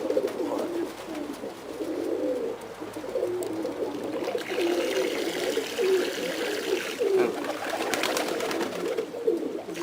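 Domestic pigeons cooing continuously, several birds' low warbling coos overlapping.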